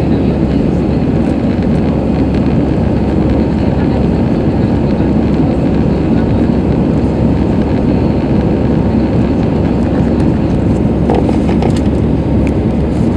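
Steady engine and rushing-air noise inside an Airbus A320's cabin during the climb-out just after takeoff.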